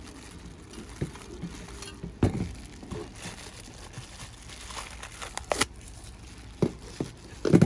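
Small plastic parts bag of wire connectors crinkling as it is handled, with a few sharp clicks and knocks scattered through, the loudest near the end.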